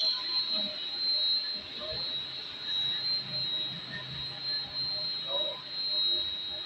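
Steady high-pitched electrical whine from a VFD inverter running on test, one unbroken tone, with a faint low hum in the middle.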